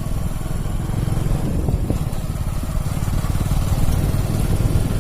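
Motorcycle running on the move, with wind buffeting the microphone; the sound starts abruptly at a cut.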